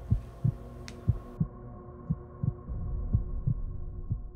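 Heartbeat sound effect: a double thump about once a second over a low steady drone, fading near the end.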